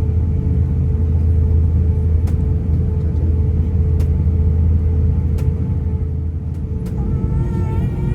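Cabin noise inside an Airbus A350-900 with Rolls-Royce Trent XWB engines: a steady low rumble under a constant hum, with faint ticks every second or so. The rumble eases near the end.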